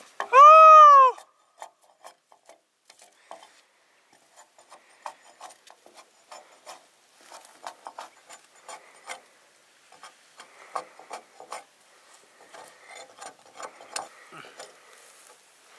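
A single loud call that rises and then falls in pitch, lasting under a second, about half a second in. After it come scattered faint clicks and scraping, fitting popcorn kernels or soybeans being stirred in a dry pan.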